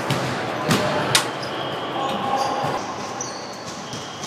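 Racquetball play: three sharp hits of the ball off racquet and walls within the first second or so, the last the loudest, followed by short sneaker squeaks on the hardwood floor.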